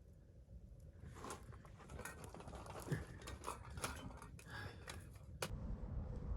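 Faint handling noises: a run of rustles and small clicks over a low rumble, ending in one sharper click about five seconds in.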